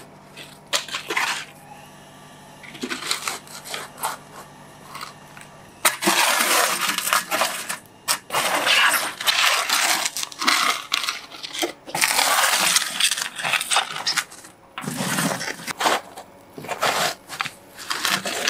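Metal shovel scraping and digging through loose ash, charcoal and broken brick, with gritty crunching and clinks of debris. This is the sound of clay-encased beggar's chickens being dug out of the hot ash pit after baking. The strokes are sparse at first and become long and heavy from about six seconds in.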